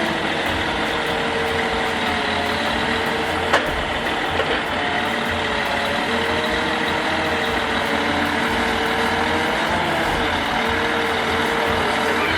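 A log-loading truck's engine and crane hydraulics running steadily. A whining tone comes and goes and shifts slightly in pitch as the crane moves. A sharp click sounds about three and a half seconds in.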